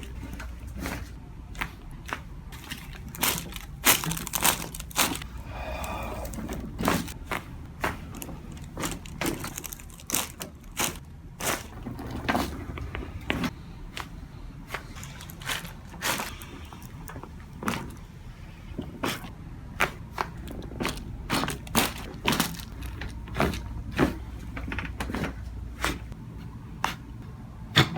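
Joints cracking and popping under chiropractic adjustments: dozens of sharp cracks, roughly one or two a second and sometimes in quick clusters, over a low steady hum.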